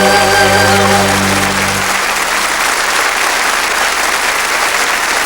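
Audience applauding over the song's final held chord; the chord cuts off about two seconds in and the applause carries on.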